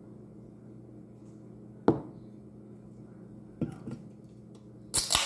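Aluminium Pepsi can handled on a table: a sharp knock about two seconds in, two lighter taps, then near the end a crisp crack as the pull tab opens, followed by a short fizzing hiss that fades.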